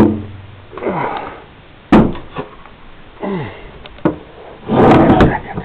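Handling noise from a handmade volcano model being moved and tipped to show its underside: two sharp knocks, the first right at the start and the second about two seconds in, a scraping rustle near the end, and a few short breathy vocal sounds falling in pitch.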